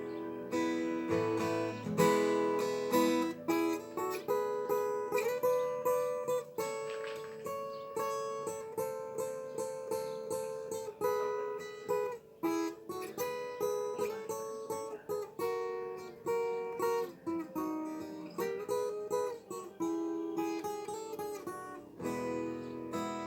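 Instrumental introduction of a sertanejo modão on acoustic plucked strings: a picked melody in parallel notes over strummed guitar chords.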